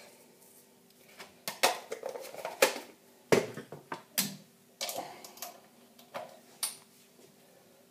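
Kitchen utensils clicking and knocking as they are handled and set down on a countertop: a dozen or so irregular sharp clicks over about five seconds, the loudest a little under halfway through.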